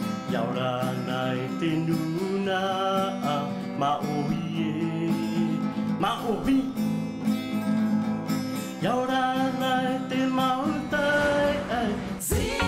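A man singing with a steel-string acoustic guitar strummed beneath, his voice holding long notes. Near the end the performance breaks off with a short burst of noise into other music.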